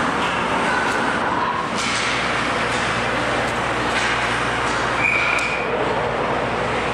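Indoor ice rink ambience: a steady drone with occasional sharp clacks of sticks and pucks, and a brief high tone about five seconds in.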